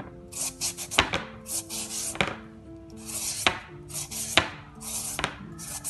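Young green papaya being shredded with a hand-held shredding peeler: quick rasping strokes of the blade down the firm flesh, several a second, with a sharp click now and then.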